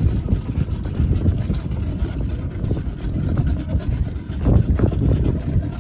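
Low, steady rumble of a motorboat running on the water.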